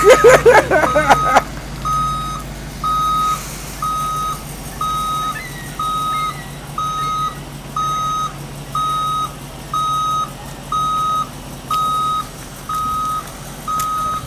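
Box truck's reversing alarm beeping steadily at one pitch, about once a second, each beep about half a second long.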